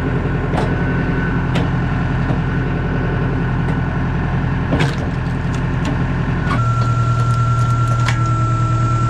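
Tractor engine running steadily at a constant note to drive a PTO-powered hydraulic log splitter, with a steady high whine over it. A few sharp cracks and knocks come from logs being split and handled, and the engine hum grows louder about two-thirds through.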